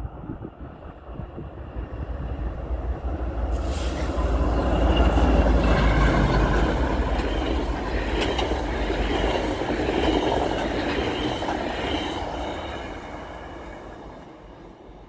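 EMD F59PH diesel locomotive and its six bilevel coaches passing at about 100 km/h. The rumble and rail noise build as the train approaches, are loudest from about four seconds in as the locomotive and coaches go by, then fade away near the end.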